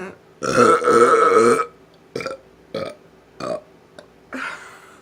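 A person burping on purpose: one loud, drawn-out burp lasting over a second, beginning about half a second in, followed by three short, quieter sounds and a breath.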